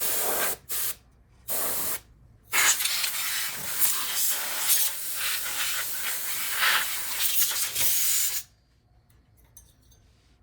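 Can of compressed air duster spraying: three short blasts, then one long continuous blast of about six seconds that cuts off suddenly, blowing dust out of a computer case.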